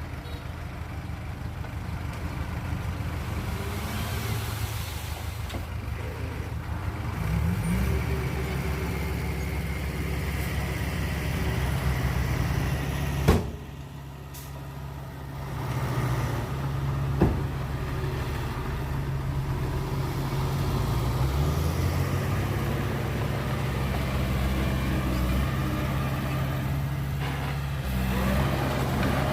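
Heavy diesel machinery engine running under load. Its pitch rises about seven seconds in; a sharp clank comes near the middle, the engine sound dips briefly after it, and a second clank follows a few seconds later.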